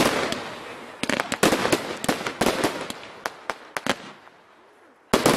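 Consumer firework cakes firing: a rapid run of sharp bangs and crackles that thins out and fades. It falls almost silent for about a second near the end, then a new loud volley starts.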